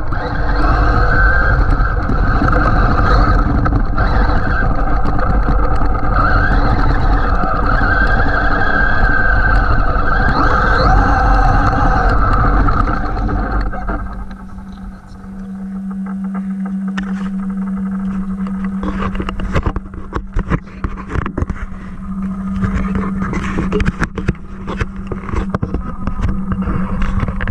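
Traxxas MAXX RC truck driving hard: its electric motor whines and its tyres run over rough ground for about 14 seconds. Then it eases off to a steady low hum, with scattered crackling scrapes and knocks of the tyres and chassis over rocks.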